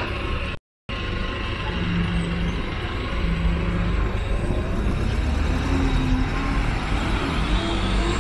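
Busy city street traffic: buses and cars running and passing with a low engine rumble. The sound cuts out completely for a split second under a second in.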